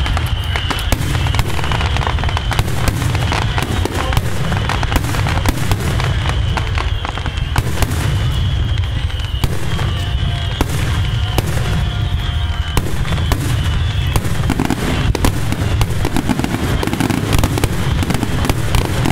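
Fireworks finale: a continuous, dense barrage of booming shell bursts and crackling, the bangs coming one on top of another with no pause.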